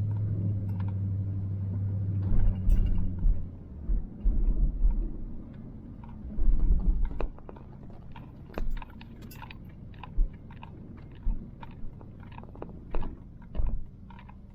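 Inside a moving van: a steady low engine hum for the first few seconds, then a run of irregular low thumps and clicks.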